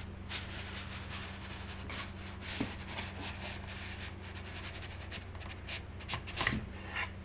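Cardboard and plastic packaging rubbing and rustling in short scraping strokes as an Apple Magic Keyboard is slid out of its box, with a few light knocks, over a steady low hum.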